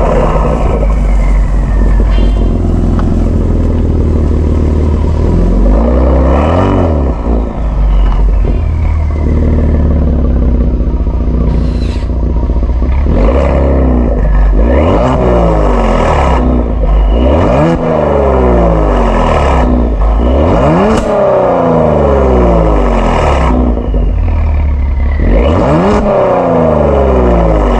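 Kia Stinger 3.3 twin-turbo V6 through an aftermarket JSR Performance exhaust, driving with a loud, deep exhaust note that climbs in pitch under acceleration and drops back, about six times over.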